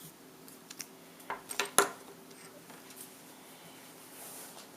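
A few light clicks and taps of small hard items being handled and set down. The sharpest click comes just under two seconds in.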